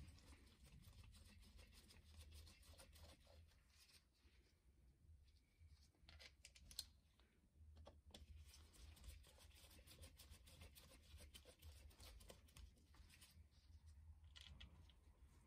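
Near silence, with faint scratching and light metallic clicks of a hand tool working on the clutch bolts, and one sharper click about seven seconds in.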